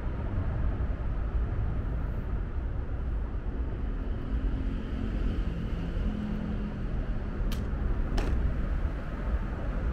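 Steady low outdoor rumble, with two sharp clicks about seven and a half and eight seconds in.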